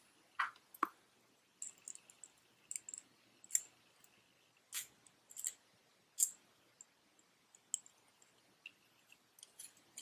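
Faint, irregular small metal clicks and taps as the parts of a Meng MT-001 airbrush are fitted back together by hand.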